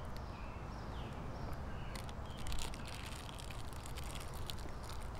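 Small clear plastic bag crinkling in the hands as it is opened, the crackles coming mostly from about two seconds in.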